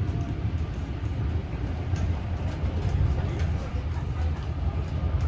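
An old railway carriage running at speed behind a steam locomotive, heard from inside: a steady low rumble of wheels on track, with occasional faint clicks and rattles.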